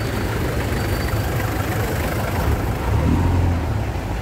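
Street traffic: vehicle engines running close by, with a deeper engine hum swelling for about half a second some three seconds in.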